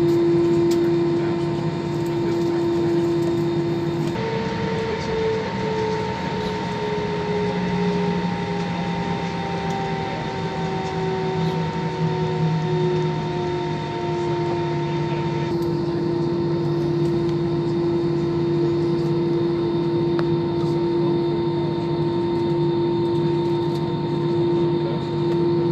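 Airliner cabin noise as a Vueling Airbus A320-family jet taxis: a steady engine hum, with tones that glide slowly down in pitch from about four seconds in.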